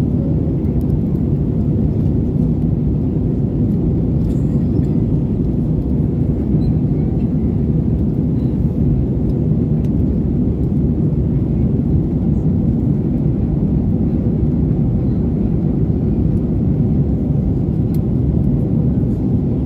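Steady low rumble of an Airbus A320neo airliner in flight on its landing approach, with a faint steady hum over it.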